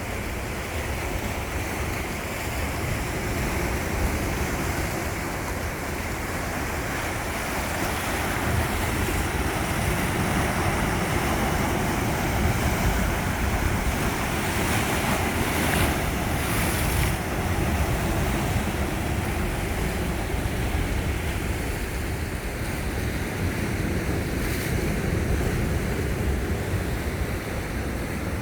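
Sea waves washing onto the shore in a steady rush of surf, with wind buffeting the microphone.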